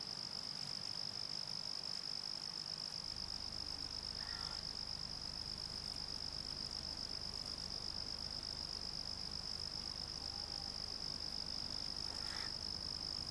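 Crickets chirping at night: a continuous high-pitched trill, pulsing evenly.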